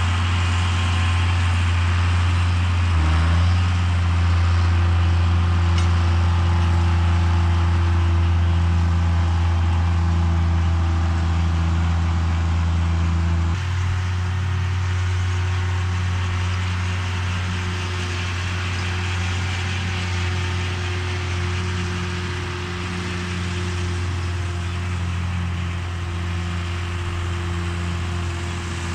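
John Deere 7510 tractor's diesel engine running steadily under load while pulling a John Deere 450M round baler through the windrow. The engine note shifts slightly about three seconds in and again about halfway through.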